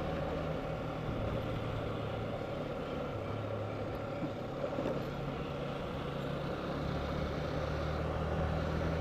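Yamaha R15's single-cylinder engine running steadily under way, its note and level rising slightly in the last few seconds.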